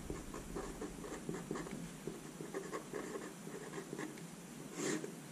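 Felt-tip fineliner pen (Stabilo Point 88) writing a word on paper over a clipboard: faint, irregular scratching strokes. There is a brief louder rustle about five seconds in.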